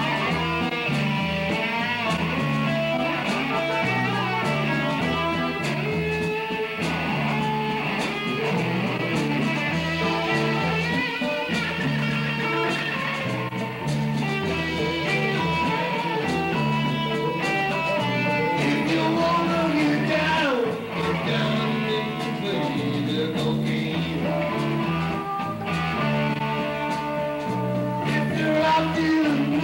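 Live rock band playing: electric guitar over bass guitar and drums, with a sliding, falling guitar note about two-thirds of the way through.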